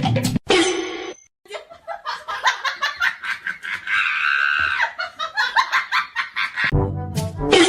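A person laughing in many short, quick bursts, with one longer high-pitched stretch in the middle. Music comes back in near the end.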